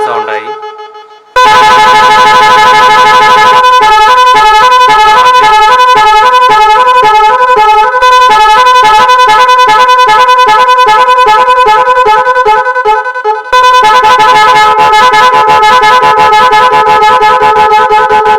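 Two-horn multi-tone vehicle horn kit sounding loud. It gives a steady two-tone blast, then from about three and a half seconds in a fast alternating melody of tones for roughly ten seconds, then a steady blast again. Each change of pattern is set by touching the trigger wire to negative.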